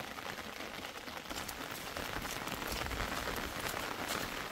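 Steady rain falling, with many small sharp drop ticks over an even hiss, and a brief low rumble about three seconds in.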